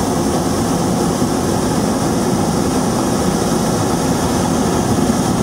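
Hot air balloon's propane burner firing a long blast, a loud steady roar.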